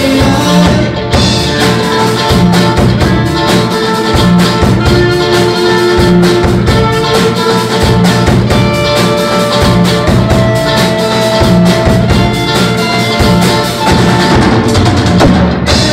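Rock band music: electric guitars over a drum kit with a steady beat, with long held notes in an instrumental stretch.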